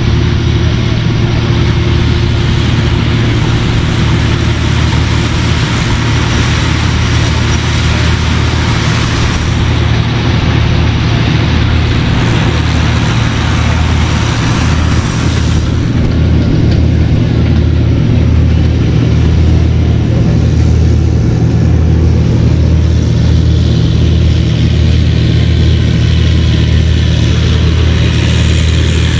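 An engine running steadily with a low hum, its higher-pitched noise changing about halfway through.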